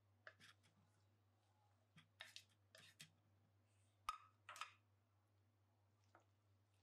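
Faint scrapes and light clicks of shredded cabbage being tipped off a plastic plate into a ceramic bowl, with a sharper knock about four seconds in.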